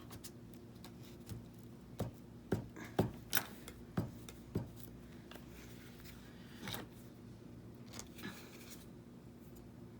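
Paper-crafting handling at a work table: a quick run of about seven sharp clicks and snips in the first half, then a couple of softer rustles as paper layers are worked.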